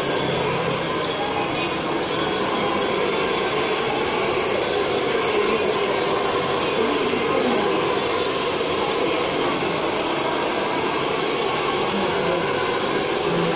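Handheld hair dryer blowing steadily, a constant rush of air at an even level.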